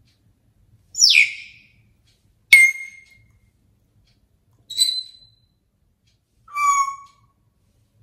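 African grey parrot giving four short whistles and calls, one every second or two, the first falling in pitch and the second starting with a sharp click. These are contact calls to its owner, who has left the room.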